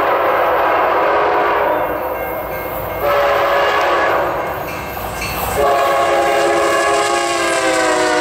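Multi-chime train air horn sounding in one long, continuous blast. Its chord shifts about three seconds in and again more strongly near six seconds, and the pitch slides slightly lower toward the end.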